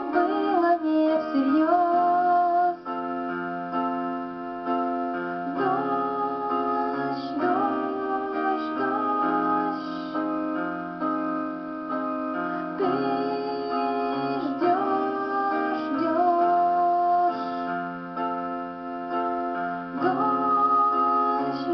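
Keyboard music in a piano sound: sustained chords and a melody that slides between notes, over bass notes that change every couple of seconds.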